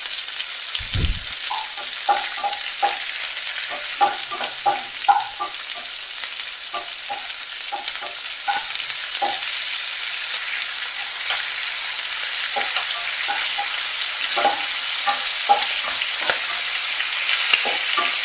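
Hot oil sizzling steadily in a nonstick kadai as mustard seeds, fennel seeds, garlic and dried red chillies are tempered. Frequent short clicks and taps come through as a spatula stirs the pan.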